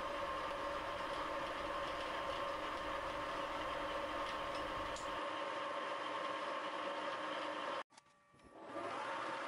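Thiel Duplex 158 milling machine running with a steady hum and a held tone. The sound cuts out suddenly near the end and fades back in about a second later.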